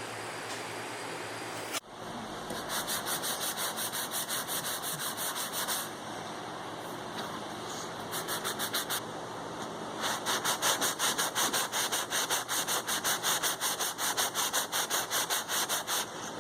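Sandpaper being rubbed back and forth by hand over Bondo body filler, in quick strokes about four a second. The strokes come in three runs, the longest in the second half, after a steady hum in the first two seconds.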